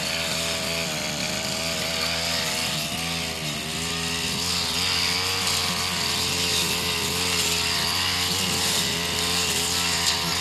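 Backpack brush cutter's small petrol engine running under load as its metal blade cuts grass, the engine speed dipping and recovering a few times.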